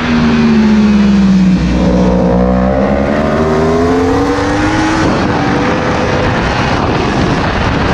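Yamaha race bike's engine heard onboard with heavy wind rush: the note falls over the first two seconds, climbs steadily as the bike drives out of the corner, then drops lower about five seconds in.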